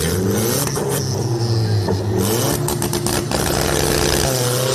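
Car engine running under load during a drive, with a few short rattles in the middle; near the end the engine pitch dips and then climbs again.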